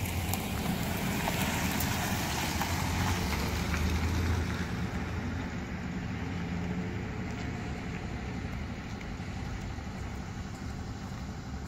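Motor vehicle noise from road traffic: a steady engine hum with tyre hiss, swelling to its loudest about four seconds in and easing off after.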